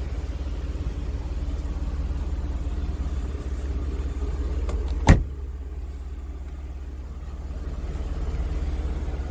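A car door on a 1994 Mercedes-Benz W124 sedan is shut with one sharp thud about five seconds in, over a steady low rumble.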